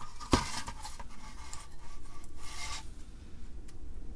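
Atari 1050 disk drive circuit board and its metal shield being handled on a workbench: a sharp click about a third of a second in, then short bouts of rubbing and scraping as the board is shifted and lifted.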